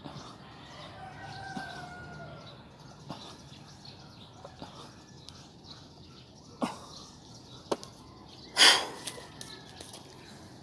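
Quiet outdoor ambience with a faint bird call in the first couple of seconds, then two sharp clicks and a short, loud rustling burst near the end.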